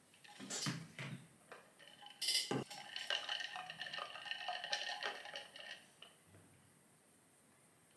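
A white coffee tumbler being handled on a desk: a few soft bumps, then a sharp knock as it is set down, followed by about three seconds of ringing, squeaky tones at several pitches while it is held and shifted against the table, stopping as it is lifted.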